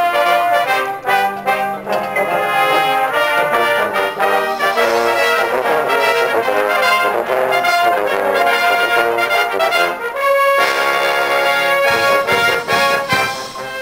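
Drum corps brass line playing loudly together, horns and a contrabass in close, moving through a run of notes and then holding a long chord that dies away near the end.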